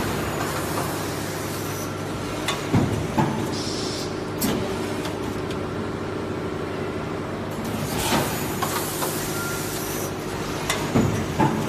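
High-speed thin-wall injection molding machine running: a steady hum with sharp clanks and short hisses of air, in bursts about three seconds in and again near the end, each burst a cycle of the mold working, which runs every 6 to 8 seconds.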